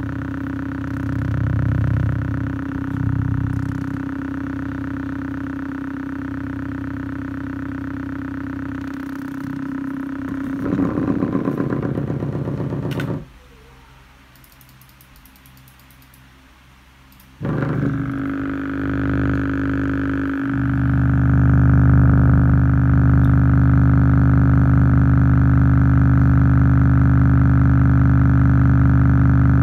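A 4-inch subwoofer driver playing a low-frequency test tone at high cone excursion, a steady buzzing tone. It cuts out for about four seconds midway, comes back, and gets louder a few seconds later.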